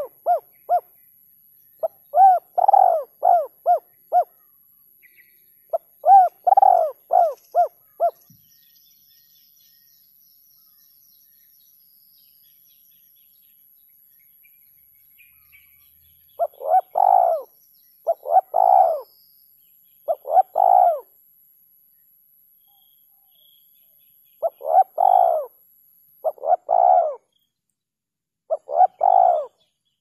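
Spotted dove (tekukur) cooing in repeated phrases of several rounded coos each, with a silent gap of about eight seconds in the middle. It is a lure call recording used for trapping the bird.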